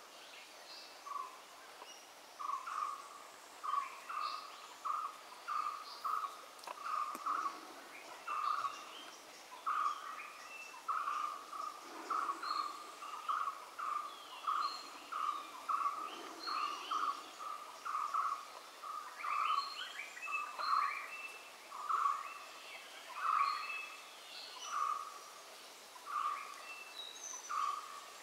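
Wild animal calls: a long run of short, similar notes repeating a little more than once a second, with scattered higher chirps over them.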